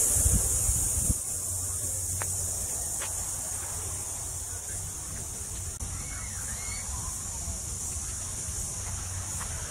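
Steady high-pitched drone of a cicada chorus in coastal bushland, with a few short bird chirps about six seconds in and some low wind or handling rumble in the first second.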